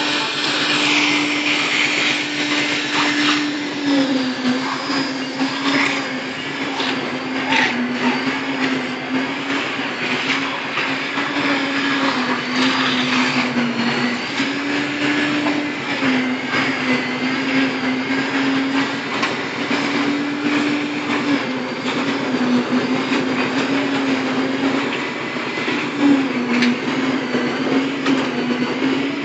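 Motorised machinery running continuously, with a steady hum that wavers up and down in pitch under a dense clatter of knocks and rattles.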